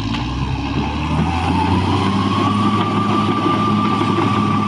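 Caterpillar D6R bulldozer's diesel engine picking up revs, its pitch rising over the first couple of seconds and then running steady under load, with a thin high whine on top.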